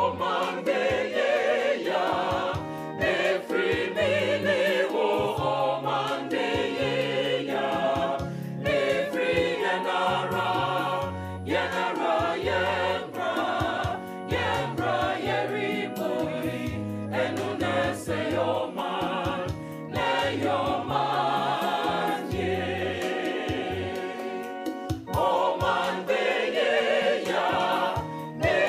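Background music: a choir singing, with a bass line that steps between notes and a percussion beat.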